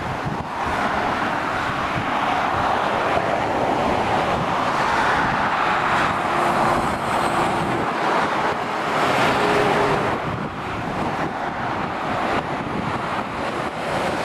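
Motorway traffic passing below, lorries and cars: a steady noise of tyres and engines that swells as each vehicle goes by, loudest about five and about nine seconds in.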